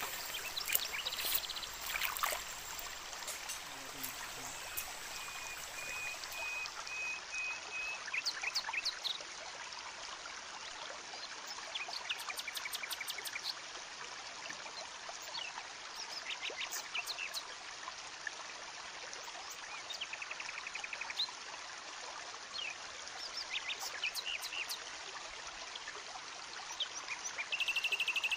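A small forest stream trickling and flowing steadily, with scattered short clicks and cracks. Brief high chirps and trills sound over it, one held high note a few seconds in and a rapid trill near the end.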